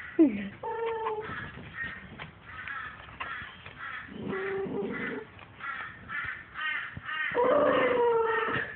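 Maltese cross dog making a string of moaning growls and whines, several sliding down in pitch, with a sharp falling cry about a quarter second in. It is warning off the hand that touches him while he chews a bone.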